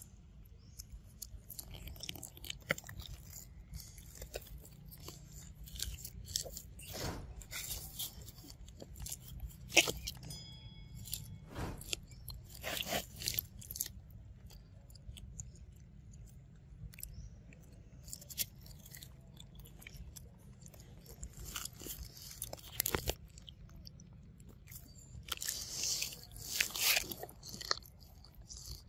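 A macaque biting and chewing kernels off a cob of corn: irregular crisp crunches and wet chewing clicks, with a louder burst of crunching near the end.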